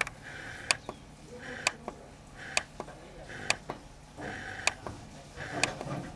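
Car radio tuning by hand through the medium-wave band in 9 kHz steps: a sharp click about once a second as it moves to each new frequency, each followed by a short burst of static. Faint snatches of station voices come through between steps in the second half.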